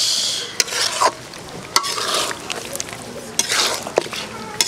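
Metal spatula stirring and scraping beef curry in a metal karahi, the meat and spice paste sizzling as it fries down. There are a few sharp clinks of the spatula against the pan.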